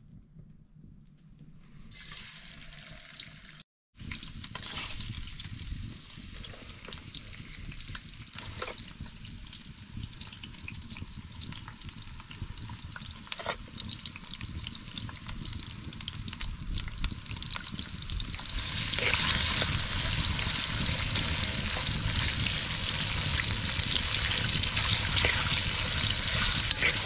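Potato strips frying in oil in a steel pan over a wood fire: a steady sizzle that grows louder and brighter about two-thirds of the way through, with a few sharp clicks.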